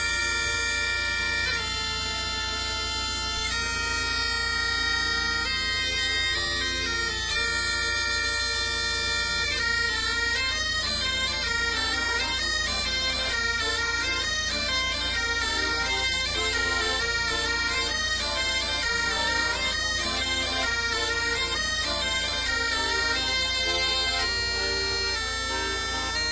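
Bagpipe music: a steady drone under a quick-moving melody of held, reedy notes.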